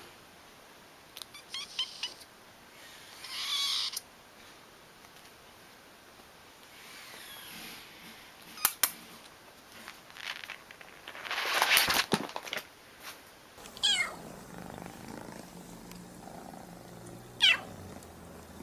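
Kittens meowing and purring. Thin, high meows fall steeply in pitch twice in the second half, over a low steady purr, after a stretch of rustles and clicks.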